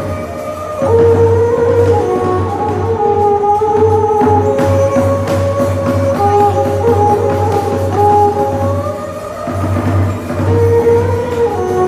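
Khmer traditional ensemble music (nhạc ngũ âm, the pinpeat style): a melody moving note by note over repeated percussion strikes.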